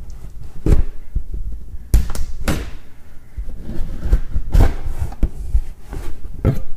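Cardboard shipping box being handled and opened: a series of knocks, thumps and scrapes, the loudest about two seconds in and again about four and a half seconds in.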